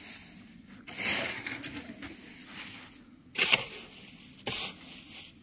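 Footsteps crunching on dry, stony ground, three separate crunches with the loudest just past the middle.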